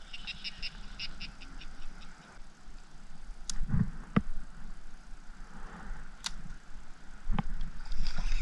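About four sharp clicks and knocks of fishing gear handled in a kayak, one with a low thump, following a quick run of high chirps in the first second and a half.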